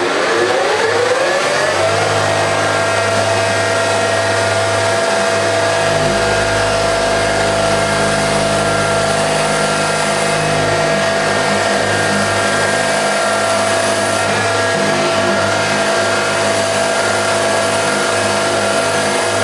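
Milling machine spindle spinning up to full speed over about two seconds, then running steadily with a whine, for friction welding a high-speed-steel bit into copper. A deeper rumble joins about six seconds in.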